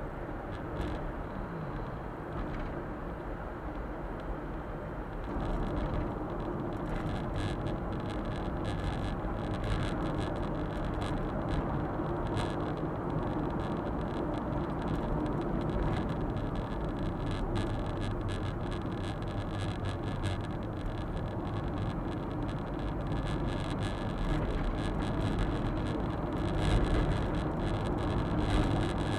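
Suzuki Super Carry kei truck on the move, its small three-cylinder engine and tyre noise heard from inside the cab. The steady rumble gets a little louder about five seconds in, with fine crackling over it from then on.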